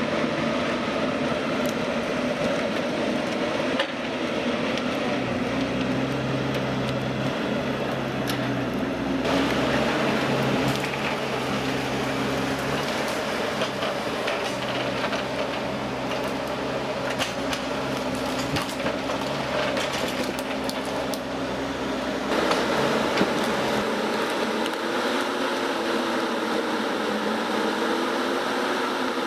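Machinery running steadily with scattered knocks and clatter, the sound changing abruptly twice as different machines take over.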